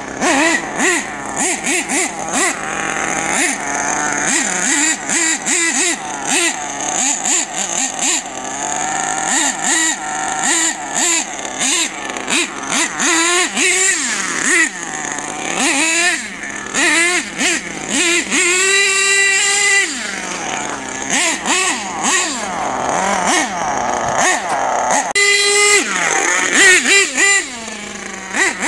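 HPI Savage X 4.6 nitro RC monster truck's small two-stroke nitro engine revving up and down over and over as the truck is driven, pitch rising and falling with the throttle. Near the end it gives a run of short, quick throttle blips.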